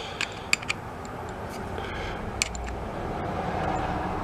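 A few light, sharp clicks of small metal parts being handled, over a steady low background rumble that swells slightly partway through.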